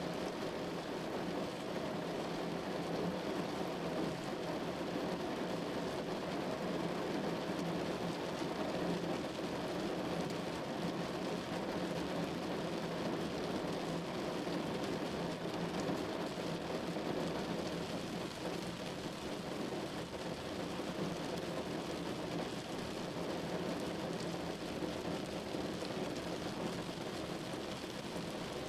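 Steady rain falling on a window: an even, unbroken hiss of drops with no pauses or surges.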